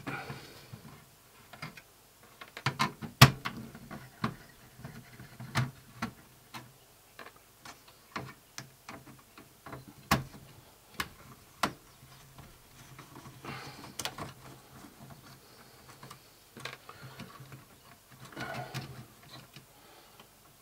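Irregular sharp clicks and taps of a screwdriver working screws loose in the metal chassis of a Panasonic DMR-EZ45V VHS-DVD recorder, the loudest click about three seconds in. A few brief soft rustles come in the middle and near the end.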